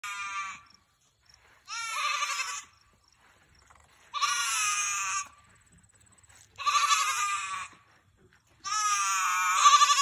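Nigerian Dwarf goat bleating over and over in a weird-sounding call, each bleat about a second long with a short pause between, five in all.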